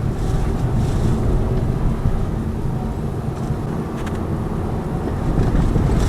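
Steady low road and tyre rumble inside the cabin of a moving Lada Vesta Cross, with one faint click about four seconds in.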